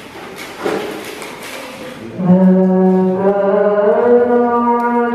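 A woman's voice beginning a melodic Qur'an recitation (tilawah), holding one long note that steps up in pitch partway through. It comes in about two seconds in, after a couple of seconds of microphone rustling.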